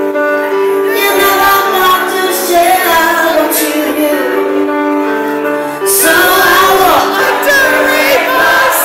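Pop band playing live: a woman singing lead into a microphone over keyboards, drums and bass guitar, holding long notes with vibrato.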